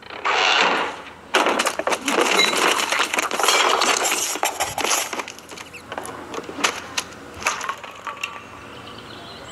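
Small objects clattering, knocking and scraping onto a wooden desk: a dense run of sharp clicks and rattles that thins to scattered knocks toward the end.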